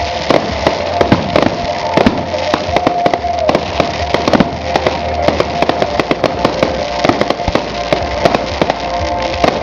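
Aerial fireworks shells bursting in a rapid, irregular volley of bangs and crackles, with music playing underneath.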